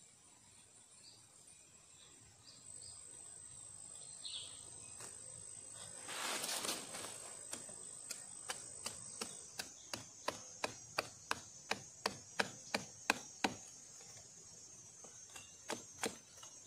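Machete blade striking a stick held against a log: after a brief scrape, a steady run of sharp chops about three a second that grows louder and then thins to a few scattered strikes near the end. A steady high insect drone underneath.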